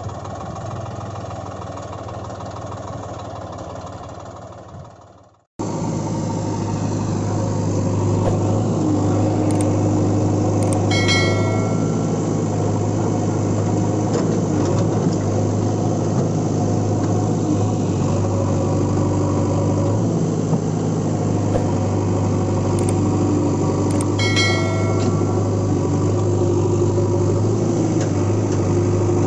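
Steady idling engine sound of heavy machinery, with a strong low hum. It fades out to silence about five seconds in, then starts again abruptly and runs on steadily. Two brief ringing clicks come in the middle.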